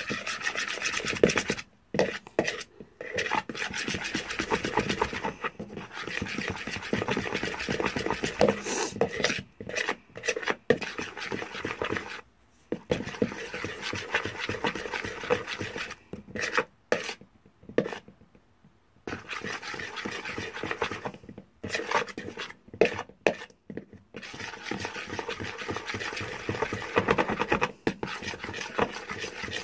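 A spoon stirring glue and shaving foam together in a bowl: rapid scraping strokes that stop briefly a few times.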